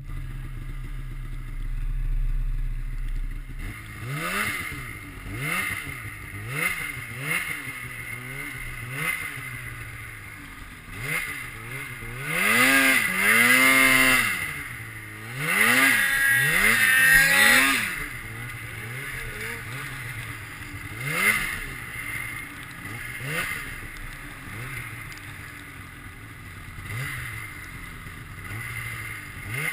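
Snowmobile engine revved in short throttle blips, the pitch rising and falling about once a second, with two longer runs of high revs near the middle. It runs low and steady for the first few seconds.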